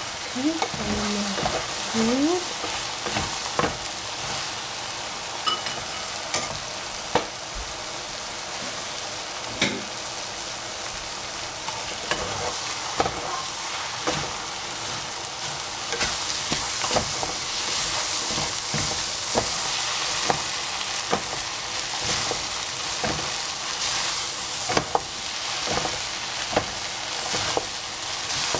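Noodles sizzling as they fry in a pan while a wooden spatula stirs and tosses them, with frequent short knocks and scrapes of the spatula against the pan. The sizzle grows louder about halfway through.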